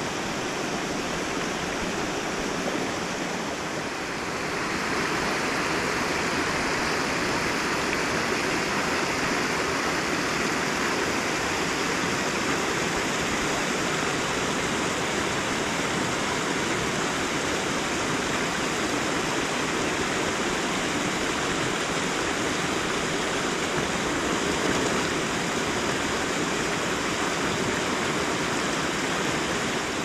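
Water rushing through a gap in a beaver dam, a small whitewater cascade spilling into a shallow stream. Steady, getting a little louder from about four seconds in.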